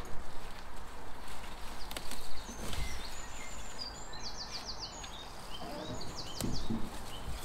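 A small songbird singing quick, high repeated phrases in the background, over a few soft knocks and rustles from potato plants and compost being handled in a pot.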